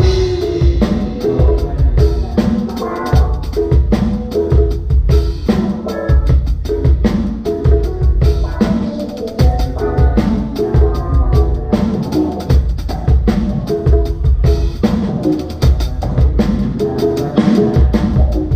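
A live band playing through the PA during a sound check: a drum kit with kick and snare keeping a steady beat under repeating pitched bass and keyboard-range notes.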